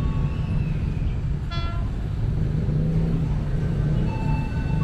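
Electric commuter train rumbling past with a steady low rumble, and one short horn toot about a second and a half in.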